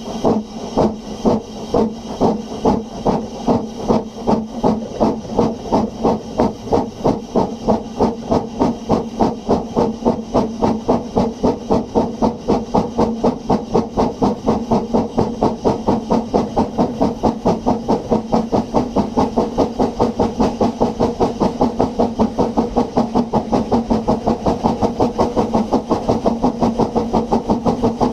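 Double Fairlie steam locomotive puffing away from a standstill: steady chuffs of exhaust steam that quicken from about two a second to four or five a second as it gathers speed, with a steady low tone beneath the beats.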